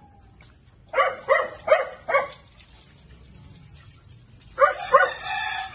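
Small dog barking: four quick sharp barks about a second in, then two more near the end, followed by a longer drawn-out call.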